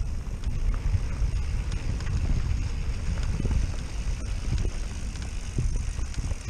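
Wind buffeting the microphone of a mountain bike rider's camera, a steady low rumble, with mountain bike tyres rolling over a dirt and gravel trail and scattered small clicks and knocks from the bike on the rough ground.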